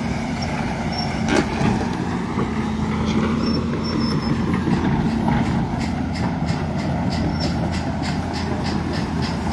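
Heavy construction machinery's diesel engine running with a steady low drone. A sharp knock comes about a second and a half in, then a quick series of knocks, about three a second, through the second half.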